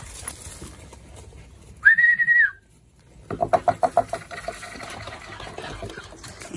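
A person whistles a single steady, high note, under a second long, to call puppies through a corrugated plastic tube. A quick run of short pitched chirps follows about a second later.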